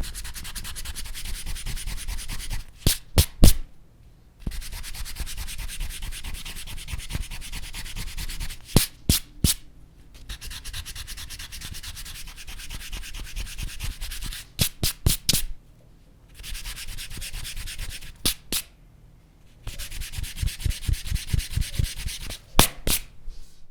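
Rubber eraser scrubbing back and forth on paper in five bouts of fast rubbing, each broken off by a quick cluster of sharp taps.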